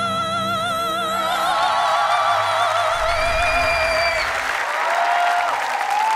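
A girl's voice holds one long, high sung note with a wide vibrato over backing music, ending about four seconds in. Audience applause and cheering rise under it from about a second in and carry on.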